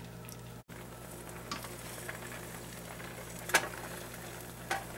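Beaten egg sizzling faintly in a hot nonstick frying pan, with a few light taps from the pan and spatula being handled; the sharpest tap comes about three and a half seconds in.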